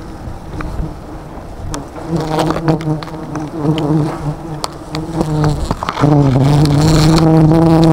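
Swarm of honeybees buzzing close by, disturbed as their wild nest is harvested. The steady buzz starts about two seconds in and gets louder about six seconds in, with sharp clicks and crinkles from a plastic bag being handled.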